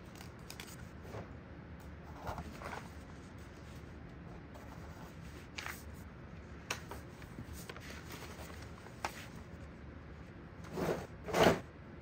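Sheets of paper labels rustling and a hard plastic Hot Wheels Service Center playset being handled, with scattered light clicks. Near the end come two louder scrapes, one after the other, as the playset is shifted across a tile floor.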